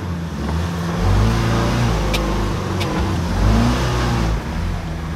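Ford Bronco's engine pulling at low speed as it crawls up onto a pile of logs, its revs rising and falling, with two sharp clicks about two and three seconds in.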